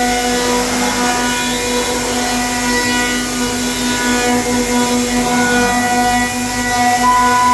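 Multi-spindle 5-axis CNC router milling walnut gun stocks: a steady spindle whine, its overtones swelling and fading as the cutters load, over a hiss of cutting.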